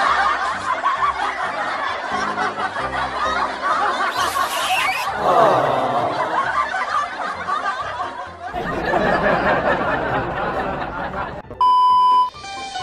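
Laughter and giggling from many people at once over faint music. Near the end, a short steady TV test-pattern beep.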